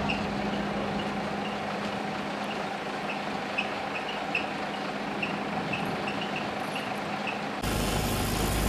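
Aerial ladder fire truck's engine idling steadily, with short high chirps scattered over it. Near the end the sound changes to a louder low rumble.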